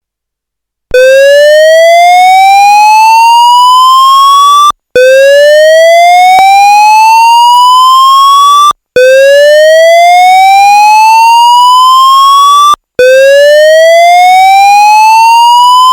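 AS2220 fire alarm evacuation tone: a loud electronic tone sweeping upward in pitch over about four seconds, repeated four times with brief breaks, starting about a second in. It is the signal to evacuate the building.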